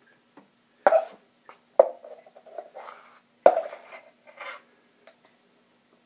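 A knife scraping and knocking against a stainless steel mixing bowl as wet plaster is scooped out, with soft plops of plaster landing in the mold. There are three sharp strikes, about a second in, near two seconds and about three and a half seconds in, each with a short metallic ring.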